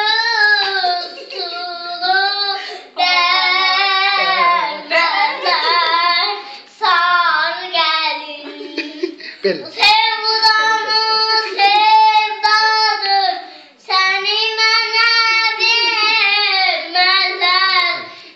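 A young girl singing a song alone in a high voice, without accompaniment, in long held phrases with a few short breaths between them.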